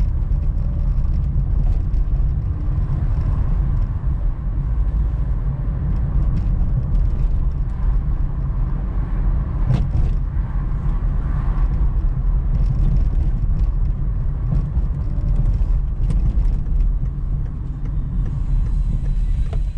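Car driving slowly along a city street, heard from inside the cabin: a steady low rumble of engine and tyres on the road, with a few brief light knocks, the clearest about ten seconds in.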